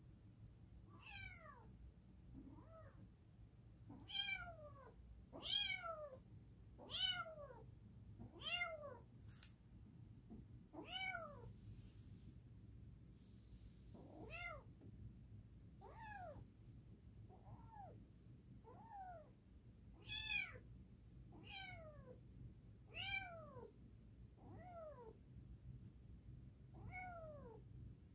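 Orange kitten meowing over and over, one high call every second or two, each call falling in pitch.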